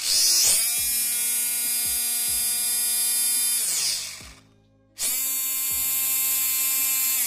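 Small electric RC-car motor driving a 3D-printed 3:1 gearbox at high speed, a loud high-pitched gear whine. It spins up quickly, holds steady for about three and a half seconds and winds down. After a short gap it starts again abruptly about five seconds in and runs on steadily.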